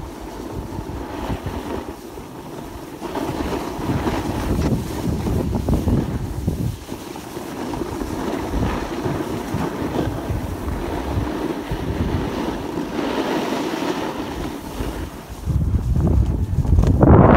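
Wind buffeting the microphone of a phone carried by a snowboarder on the move, over the shifting hiss and scrape of the board sliding across packed snow. The rumble of the wind grows louder near the end.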